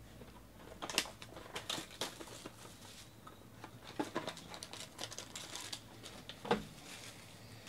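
Plastic shrink-wrap crinkling and a cardboard trading-card box being torn open and handled while a foil-wrapped pack is pulled out: an irregular run of crackles and clicks, sharpest about a second in and again near the end.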